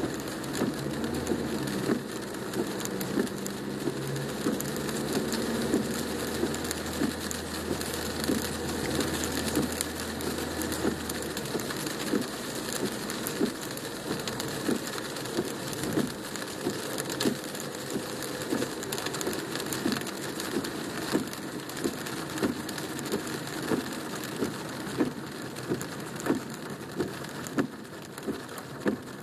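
Rain hitting the car's roof and windshield, heard from inside the cabin: a dense, irregular patter of drops over a steady hiss. A low hum underneath stops about twelve seconds in.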